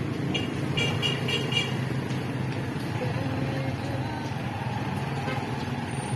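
Street traffic: a motor vehicle engine running steadily, with a quick run of short high beeps about half a second in.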